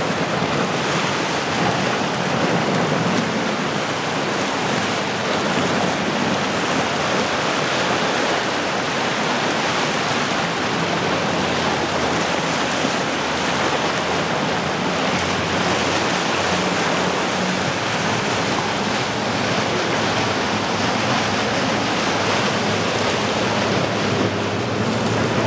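Cobia center-console boat with twin Yamaha outboards running through the inlet: a steady rush of wake and spray with a low engine drone underneath.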